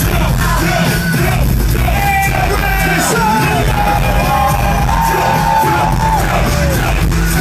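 Loud live concert music over a large PA, with a heavy steady bass and sung vocals that hold long notes through the middle, and a crowd yelling along.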